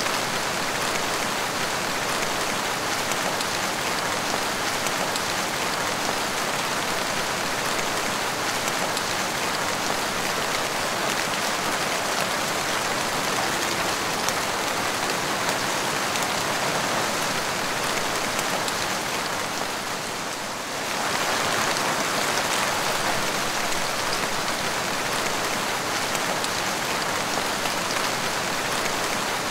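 Steady rain splashing onto a wet tiled porch floor, a dense, even hiss of drops. It eases briefly about two-thirds of the way through, then comes back to full strength.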